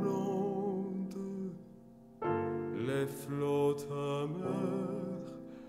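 Background music: a slow French song with piano accompaniment. Held notes waver with vibrato in the second half, after a brief dip about two seconds in.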